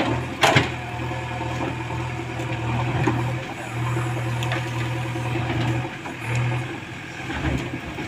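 JCB 3DX backhoe loader's diesel engine running steadily as the backhoe digs in rocky ground, its hum easing and picking up a few times. A sharp knock about half a second in.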